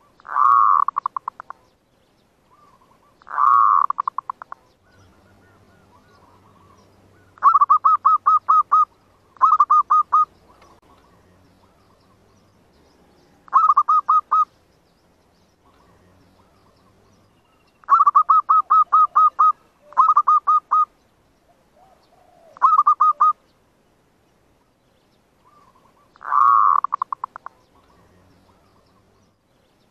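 Zebra dove (perkutut, merbuk) cooing: about nine bursts of rapid staccato notes, a few seconds apart. This is the lure call used to draw wild zebra doves to a clap-trap.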